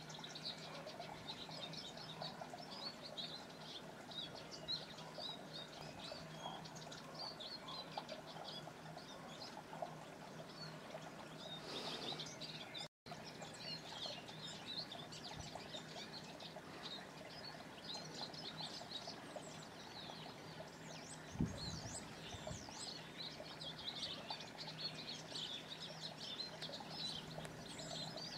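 Male Eurasian siskin singing a long, continuous twittering song. There is a brief dead silence a little under halfway, and a single low thump about three-quarters of the way through.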